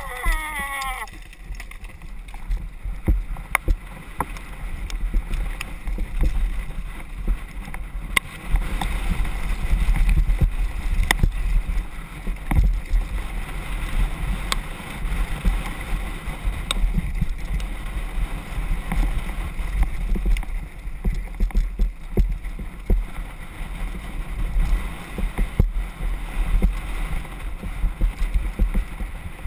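Mountain bike riding fast down a loose gravel and dirt trail, heard from a camera on the rider: a constant low wind rumble on the microphone mixed with the rattle of tyres over stones and scattered sharp clicks and knocks from the bike.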